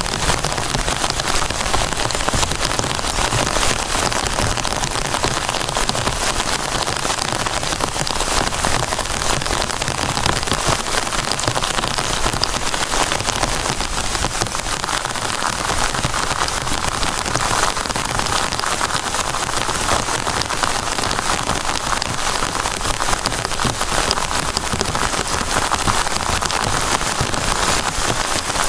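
Heavy rain falling steadily, a dense, even patter of countless drop hits.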